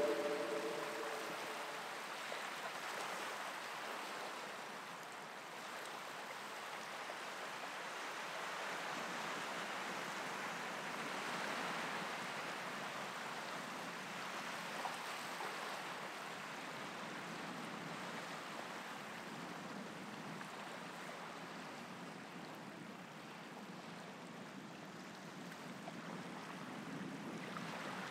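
Steady, even rushing of flowing water. A held music chord fades out in the first second or two.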